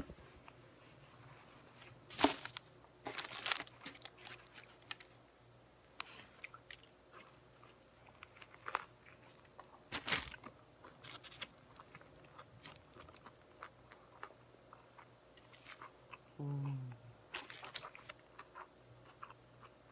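Close-up eating sounds of a Subway sandwich: biting, crunching and chewing with wet mouth clicks, in irregular bursts, the loudest bites about two, three and a half and ten seconds in.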